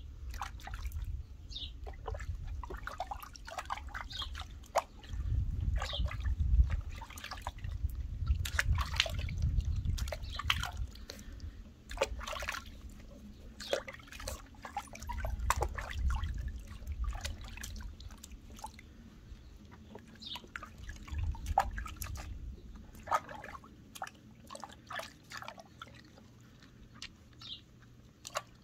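Water splashing and dripping in a plastic tub as a puppy is bathed by hand: many small, irregular splashes and drips as water is scooped and rubbed through its fur.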